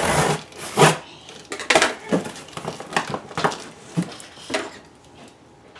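A box cutter slitting the packing tape on a cardboard box, with the cardboard flaps and tape being handled: a run of short, scratchy rasps and crackles, loudest in the first second and dying away near the end.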